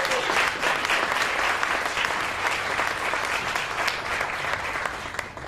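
Audience applauding: many people clapping together, dense and even, dying away near the end.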